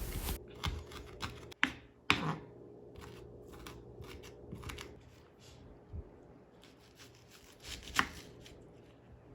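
Kitchen knife slicing habanero peppers thinly on a cutting board: irregular sharp taps of the blade on the board, the loudest about two seconds in and near the end.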